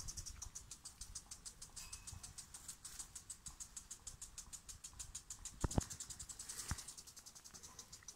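Insects chirping in a steady, rapid high-pitched pulse, about ten pulses a second. A couple of sharp taps come a little past the middle.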